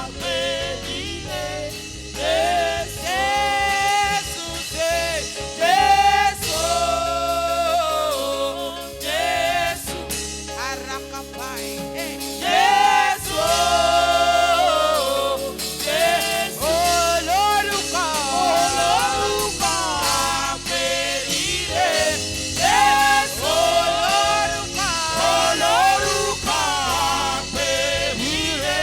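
Gospel choir singing with band accompaniment, sung notes gliding and held over a steady low bass.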